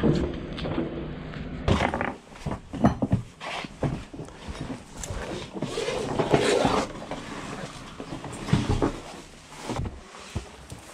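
Scuffs, knocks and rustling of a person climbing down through a concrete bunker hatch, with shoes and hands on the concrete and iron rungs. A low rumble in the first couple of seconds gives way to irregular knocks.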